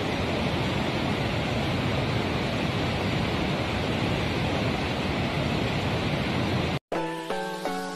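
Steady rush of a fast mountain stream in a rocky gorge. It cuts off abruptly near the end, and a short chiming music jingle begins.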